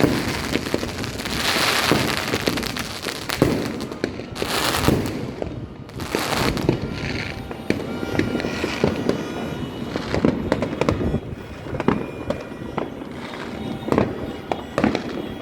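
Fireworks going off in a rapid string of bangs and pops, with loud bursts of crackling hiss in the first half.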